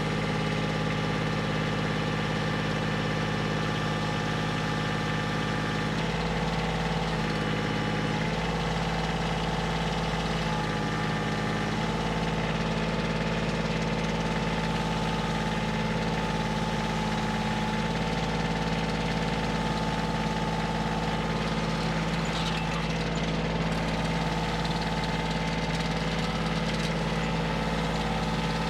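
Kioti CK2610 compact tractor's diesel engine running at raised RPM while lifting a heavy log with the grapple. Its note shifts several times between about six and twelve seconds in as the load changes.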